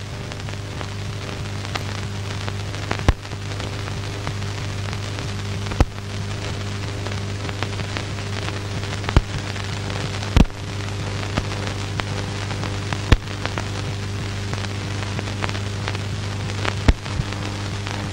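Surface noise of an old film soundtrack: a steady low hum and hiss with scattered crackles and sharp pops, the loudest about 3, 6, 10, 13 and 17 seconds in.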